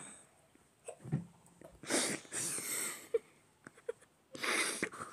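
A person's breathy puffs of breath close to the microphone, three of them, with two very short vocal blips in between.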